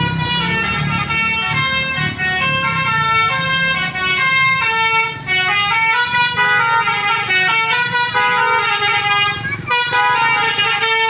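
Indonesian bus 'telolet' musical air horn playing a fast, changing melody of several tones at once, with short breaks about five and ten seconds in, over the bus engine running.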